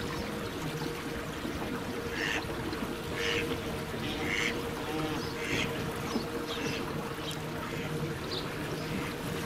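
A duck quacking in a run of short calls about once a second, starting about two seconds in, over the steady hum of the small boat's motor.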